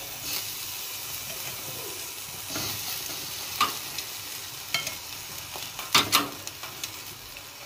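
Pieces of gulai-coated mackerel tuna sizzling as they are set on a hot wire grill rack over a stovetop burner, with a few sharp clicks of metal tongs against the rack.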